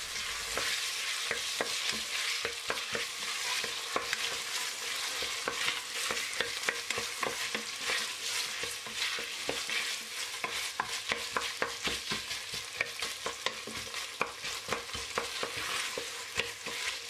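Diced vegetables and tomato and pepper paste sizzling in hot oil in a steel pot while a wooden spoon stirs them, with frequent irregular scrapes and knocks of the spoon against the pot.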